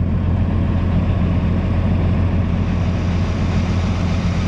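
Heavy diesel engine running steadily at low speed, with an even low hum and no revving.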